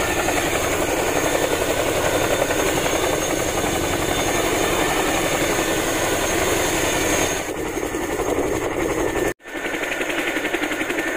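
Boeing CH-47 Chinook's twin turboshaft engines and tandem rotors running on the ground, a loud, steady, rapidly pulsing helicopter noise. It cuts out briefly about nine seconds in, then carries on.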